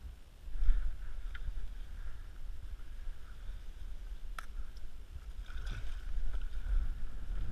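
Low steady rumble on the microphone, with faint rustling and a sharp click about four and a half seconds in, as a fish is pulled up by hand through a hole in the ice.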